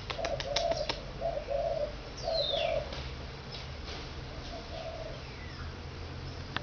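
A dove cooing: short low notes in repeated phrases that stop after about three seconds and come back briefly near five seconds. A few sharp clicks sound in the first second, and a short falling whistle comes at about two seconds.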